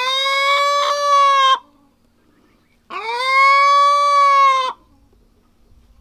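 Welsummer hen screaming: long, loud, drawn-out calls held on one pitch for nearly two seconds each. One call ends about a second and a half in and another comes about three seconds in.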